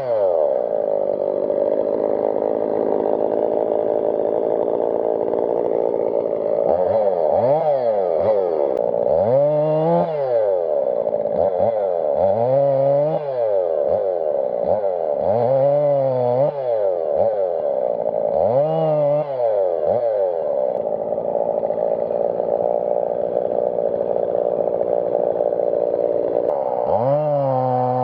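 Husqvarna 55 two-stroke chainsaw running loud throughout. Through the middle its engine speed rises and falls about five times, and it holds steadier near the start and end.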